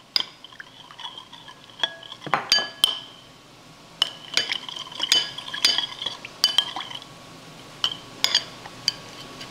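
Metal spoon stirring bouillon paste into hot water in a small glass bowl: a run of light, irregular clinks against the glass, each with a short ring.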